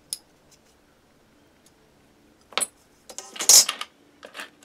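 A sharp tap about halfway in, then a short clatter and rattle as a small clear plastic parts box is picked up and handled on the workbench, with a smaller rattle near the end.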